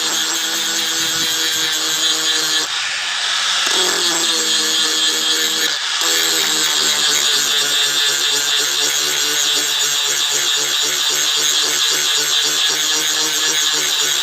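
Electric grinder running and grinding metal: a steady motor hum with harsh abrasive hiss, its pitch sagging and recovering briefly about three seconds in and again near six seconds as the load changes.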